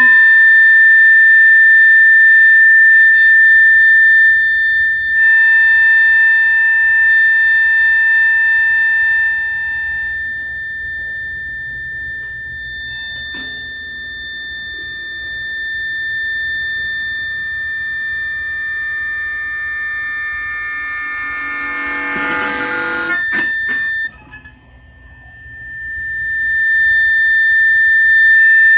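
Electric guitar feedback through a high-gain amplifier: a loud, steady, piercing tone with overtones. Extra lower tones join it for a few seconds about five seconds in, and near the end it swells into a dense cluster of tones, cuts off suddenly, then builds back up.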